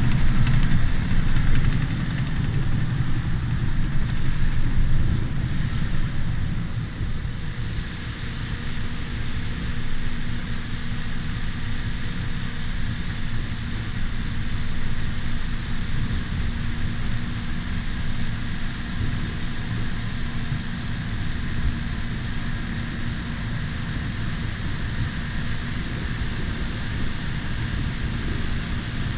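Bulldozer's diesel engine running, louder for the first several seconds and then settling into a steady drone.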